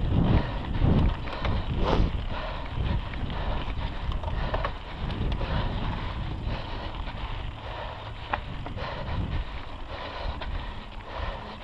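Mountain bike riding fast down a dirt singletrack: wind buffeting the on-board microphone as a low rumble, heaviest in the first couple of seconds and then easing, over the noise of knobby tyres on dirt, with a few sharp rattles of the bike over bumps.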